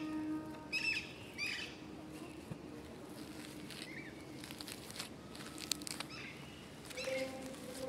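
Birds calling in short repeated calls: several in the first two seconds, one about four seconds in, and more near the end. Around the middle come a few light clicks and a faint rustle of fingers brushing over clover leaves.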